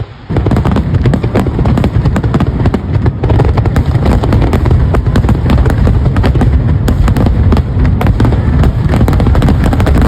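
Aerial fireworks in a dense barrage: rapid, overlapping booms and sharp crackles that start abruptly about a third of a second in and keep up without let-up, very loud.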